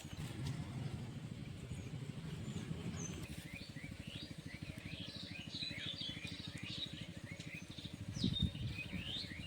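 Small birds chirping in a quick flurry of short calls, beginning a few seconds in, over a steady low rumble.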